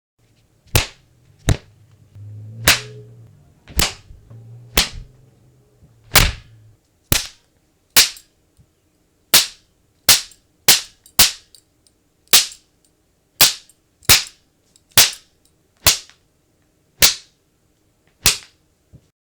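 A run of about nineteen sharp punch and slap impacts, one roughly every second, as foley sound effects. A low hum sits under the first few hits.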